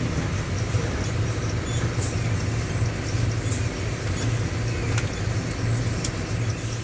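Mercedes-Benz OM-924 LA four-cylinder in-line diesel engine of an OF-1721 bus running with a steady low hum, with a few light clicks over it.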